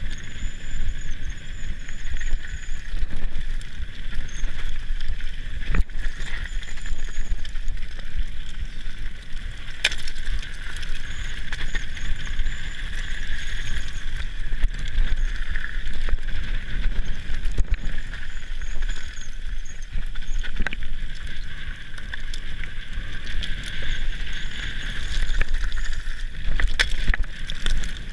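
Mountain bike descending loose slate scree: tyres crunching and skidding over the stones and the bike rattling, with occasional sharp knocks and a low rumble.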